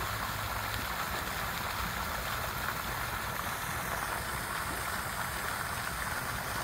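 Pond fountain splashing steadily, its jet of water falling back onto the pond surface.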